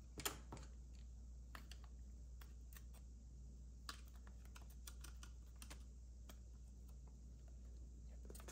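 Scattered light clicks and taps of a plastic thermostat front frame and circuit board being handled and turned over, a couple of them sharper. A faint steady low hum lies under them.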